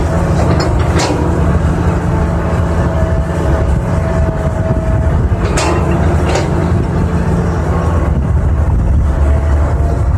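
Diesel engine of a 320 excavator running steadily with a deep rumble and a thin whine over it, with three short sharp noises: about a second in and twice around six seconds in.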